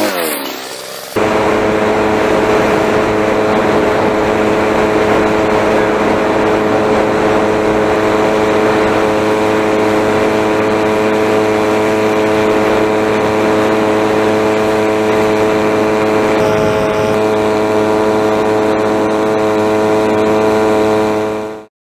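A 49cc two-stroke pocket bike engine mounted on a bicycle, running at steady high revs. In the first second its pitch falls as it passes by. About a second in, it is heard close up at a steady pitch as the bike climbs a hill under load, and the sound stops abruptly near the end.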